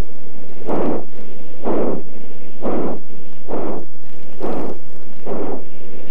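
Exhaust of a large articulated steam locomotive chuffing slowly and evenly, about one heavy chuff a second, as it works along at low speed.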